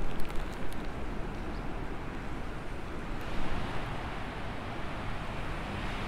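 Steady hiss and rumble of city traffic, with a few short sharp clicks in the first second. The hiss turns duller about three seconds in.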